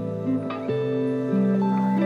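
Lofi instrumental background music: soft plucked notes over held chords, the notes changing every half second or so.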